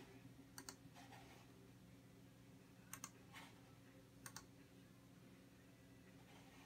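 Faint clicking on a computer as pictures are stepped through: three quick double clicks, the first soon after the start and the last about two-thirds of the way through, over a low steady hum.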